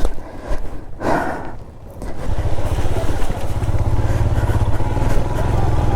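Royal Enfield Himalayan motorcycle's single-cylinder engine running at a low, even beat, coming in about two seconds in after a few knocks and a short noisy burst.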